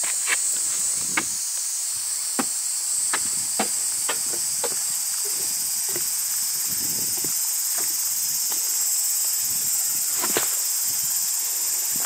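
A steady, high-pitched chorus of summer insects fills the air, while footsteps on a dirt trail give irregular short crunches.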